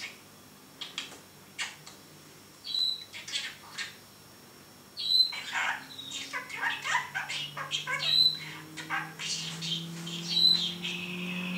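Budgerigar talking and warbling: scattered short chirps and bits of chatter at first, then from about five seconds a near-continuous run of scratchy chatter punctuated by sharp high chirps. A faint low hum rising in pitch comes in underneath near the end.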